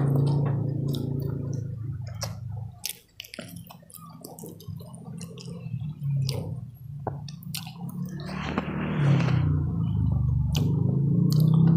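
Close-up wet chewing and mouth smacking as a person eats rice and grilled fish by hand, with scattered sharp clicks and a short rustling burst about eight and a half seconds in. A low steady hum sits under it at the start and again near the end.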